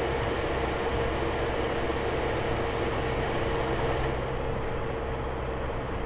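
Steady road and engine noise inside a moving car, picked up by a dashcam's built-in microphone, with a faint constant high-pitched whine.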